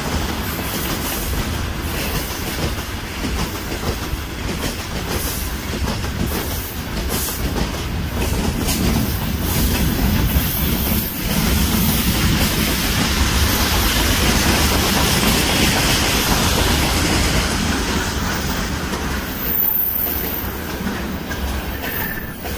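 Freight train wagons rolling past: a steady loud rumble of steel wheels on the rails, with clattering over the rail joints.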